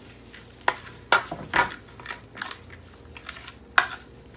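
Shredded mango salad tossed by gloved hands in a glass bowl: wet crunching and rustling of the shreds and plastic gloves, with a few sharp knocks against the bowl.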